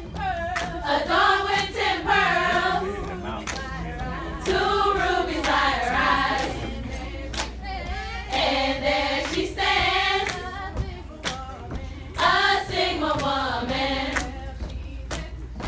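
A group of women singing a serenade together in sung phrases, with a few sharp claps.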